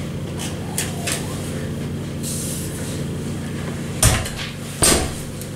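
Hotel room door being opened and shut: a few light clicks early, then two sharp knocks less than a second apart near the end as the door closes and latches, over a steady low hum.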